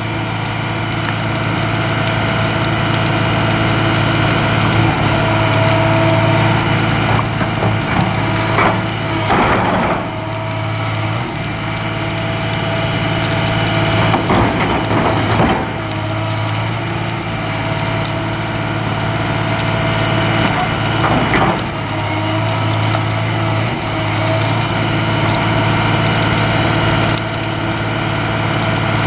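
Tracked hydraulic excavator's diesel engine running steadily, with bursts of cracking and crunching about a third of the way in, near the middle, and about two-thirds in.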